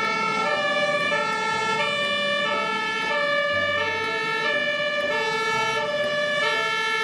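Two-tone emergency siren steadily alternating between a high and a low note, the German-style 'Martinshorn' of an airport fire-rescue crash tender.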